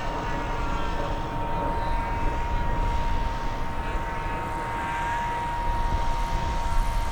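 Radio-controlled model airplane flying, its motor giving a steady high whine over a low rumbling noise.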